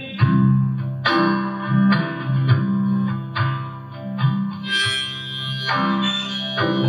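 Instrumental passage of an acoustic folk ballad: a guitar strummed about once a second, with a held melody line over it and no singing.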